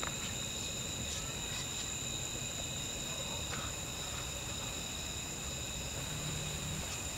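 Night insects chirring steadily in a high, unbroken chorus, with a few faint clicks over it.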